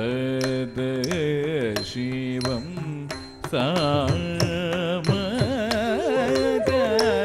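Live Carnatic music for Bharatanatyam: a male singer holds long notes and bends them with wavering gamaka ornaments over a steady drone, with sharp percussion strokes from the mridangam and the nattuvangam cymbals. The music drops briefly about three seconds in, then comes back fuller.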